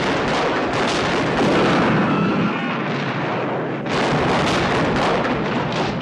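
Naval cannon fire from sailing warships exchanging broadsides: repeated booms and explosions running together into a dense, continuous din.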